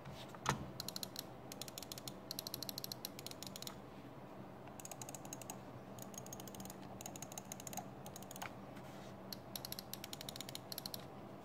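Omron switches in the main buttons of a Logitech G403 and a Fnatic Gear Flick G1 gaming mouse clicked in fast runs for comparison, several bursts of rapid clicks with short pauses, one louder click about half a second in. The G1's clicks sound a little quieter.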